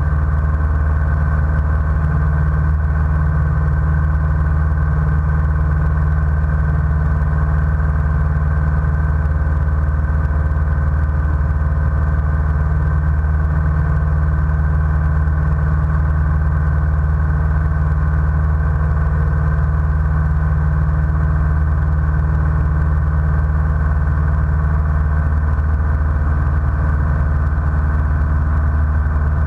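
Single-engine light airplane's piston engine and propeller droning steadily, heard from inside the cockpit.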